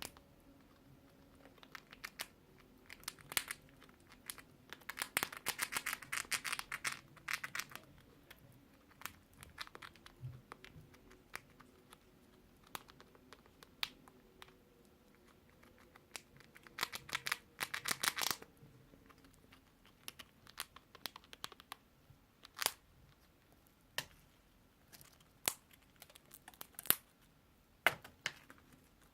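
Dry crinkling and crackling in two longer bursts, about five to seven seconds in and again around seventeen seconds in, with scattered sharp clicks between them.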